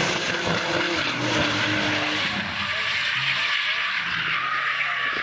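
A drift car's engine held at high revs while its tyres skid, giving a loud, steady hiss of tyre noise. The engine note fades about two seconds in while the tyre noise goes on.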